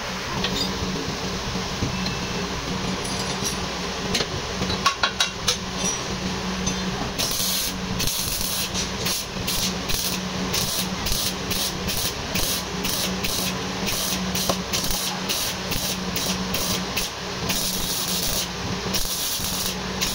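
Electric arc welding on the frame of a Toyota Hilux Vigo: the arc crackles and hisses in short stitch-welding bursts, about two a second, starting about seven seconds in, then runs in longer stretches near the end.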